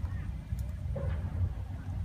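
Low, gusty rumble of wind on the microphone, with faint snaps and rustles of dry branches being pulled apart.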